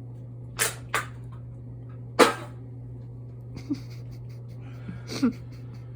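About five short, sharp bursts of breath and voice from a man straining to force out a burp, the loudest a little over two seconds in, over a steady low hum.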